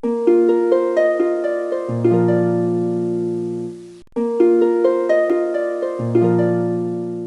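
Intro music: a short phrase of plucked-string notes stepping upward over a held bass note, heard twice with a brief break between.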